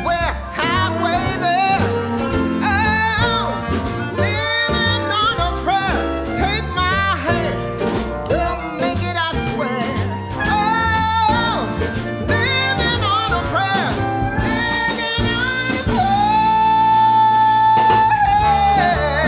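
Background music: a song with a singing voice over a band, running steadily, with one long note held near the end.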